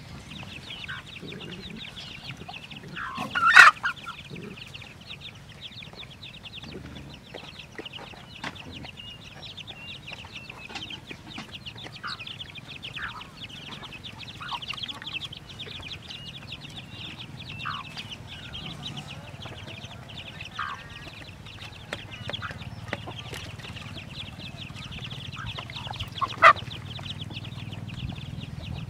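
Domestic hens clucking among feeding dogs, short calls scattered throughout over a steady high chirring in the background. Two louder sharp sounds stand out, about three seconds in and near the end.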